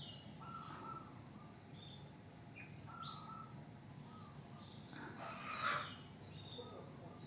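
Canary giving short, scattered chirps, some sliding down in pitch. About five and a half seconds in comes a brief burst of splashing, the loudest sound, as the bird bathes in its water cup.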